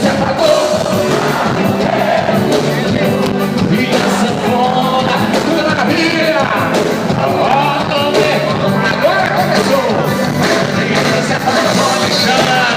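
Live band music with a singer over a steady, driving percussion beat, and crowd voices underneath.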